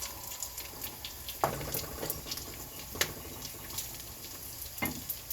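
Bacon frying under a lid, with a steady sizzle and scattered sharp pops, three of them louder than the rest.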